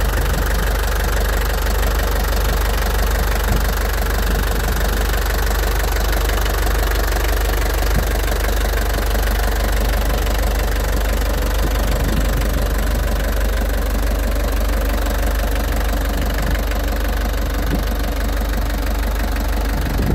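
Truck engine idling steadily, heard up close in the open engine bay.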